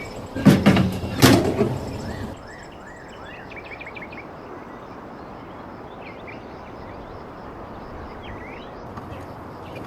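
Two heavy knocks, about half a second and a second in. After an abrupt change, a steady outdoor background hiss with small birds chirping now and then.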